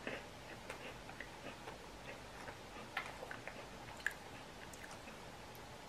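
Faint, scattered clicks and crackles of someone eating cookies: quiet chewing and cookies being handled in the plastic tray of a cookie tin, with a sharper click about four seconds in as one is lifted out.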